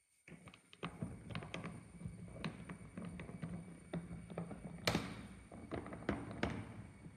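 Irregular taps and knocks from a trolley suitcase being handled, over a low steady hum, with a louder knock about five seconds in.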